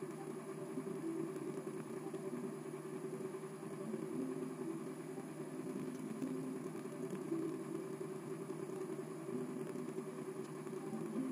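Electric stand mixer running at a steady speed, a continuous motor hum as its beater creams soft butter, sugar and egg yolks in a stainless steel bowl.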